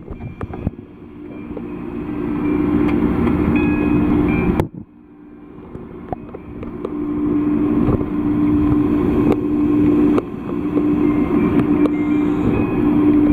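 Muffled underwater noise inside a large aquarium tank: a steady low hum under a rushing wash. The wash swells, drops away suddenly about five seconds in, then builds back up.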